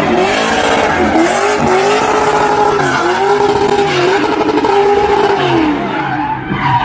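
A car engine revving hard during a tyre burnout: its pitch swells up and falls back about five times, over the steady hiss and squeal of tyres spinning on tarmac. The sound drops briefly near the end, then picks up again.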